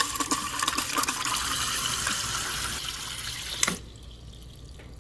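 Water running from a Samsung refrigerator's door dispenser just after a new water filter was fitted, flushing trapped air out of the line. The flow stops abruptly with a click about three-quarters of the way through.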